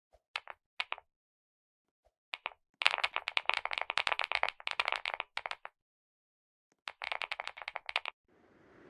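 Computer keyboard being typed on: a few single key presses, then two fast runs of clattering keystrokes with a pause between them. A faint hiss follows near the end.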